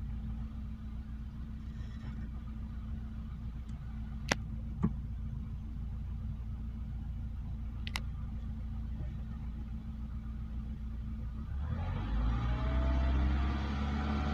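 Renault 1.4 petrol engine running on freshly changed spark plugs, heard from inside the car: a steady idle with a few sharp clicks, then revved near the end so the hum grows louder and rises in pitch.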